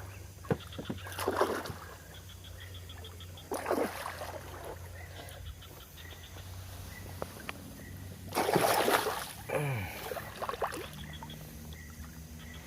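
A few splashes of water, the loudest about eight and a half seconds in, over a steady low hum, with faint rapid ticking between the splashes.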